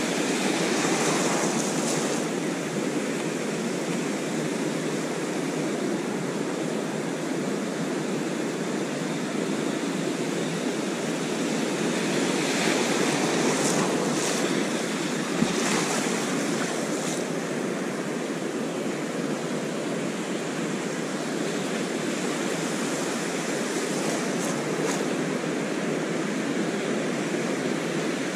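Ocean surf breaking and washing up the beach in a steady rush, with a few brief sharper hisses as waves break.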